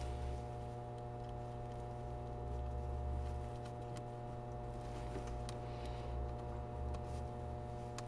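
A steady low hum, with a few faint metallic clicks and taps from a wrench working on a battery cable bolt.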